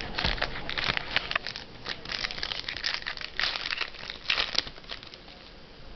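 Trading cards and their pack wrapping being handled, a run of crinkling and rustling that eases off about four and a half seconds in.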